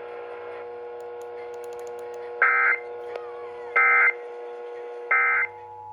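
EAS end-of-message (EOM) data bursts: three identical short, screechy two-tone digital bursts, each about a third of a second and a little over a second apart. They mark the end of the emergency alert test and sound over a steady low hum.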